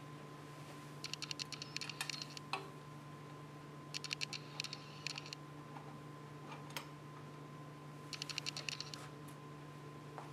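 Three bursts of rapid small clicking from hand work on the robot arm's battery cover and cable carrier during reassembly, with a few single ticks between, over a steady low hum.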